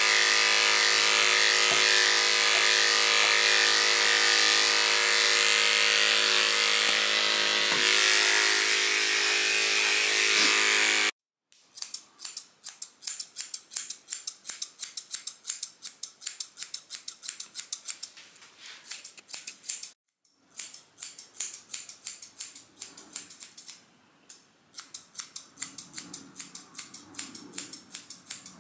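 Electric pet clippers running steadily with a high whine as they shave through a cat's matted fur, stopping abruptly about eleven seconds in. After that, grooming scissors snip the cat's fur in quick runs of crisp cuts, several a second, with short pauses.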